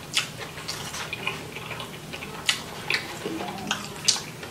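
Close-up chewing of a mouthful of steak fried rice: wet mouth smacks and sharp clicks, about seven at irregular intervals.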